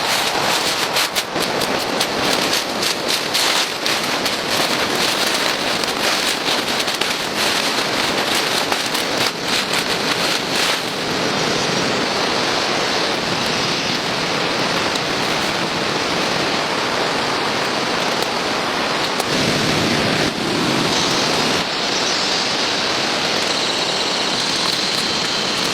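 Steady, loud hiss of heavy rain, with many sharp patters in roughly the first ten seconds, then evening out into a smooth rush.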